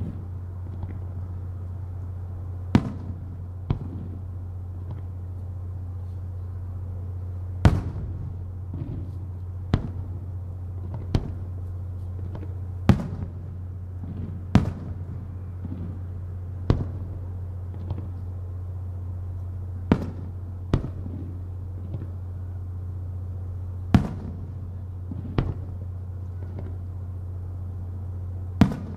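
Aerial firework shells bursting one at a time, about a dozen sharp bangs at uneven gaps of one to four seconds, over a steady low hum.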